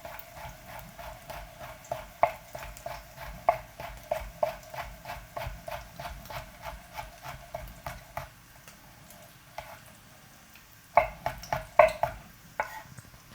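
Knife slicing chillies on a cutting board, quick even chops at about four a second. The chopping stops about eight seconds in, and a few louder chops come near the end.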